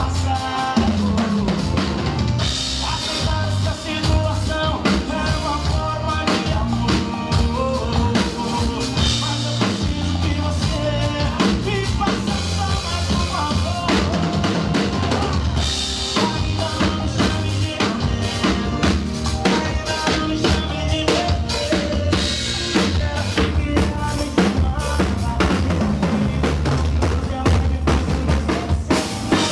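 Drum kit played along to a recorded sertanejo song during an instrumental stretch: bass drum and snare strikes over the backing band's melody.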